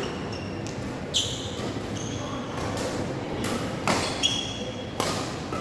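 Badminton rackets striking a shuttlecock in a rally: several sharp hits, bunched closer together in the second half, with short high squeaks of shoes on the court mat.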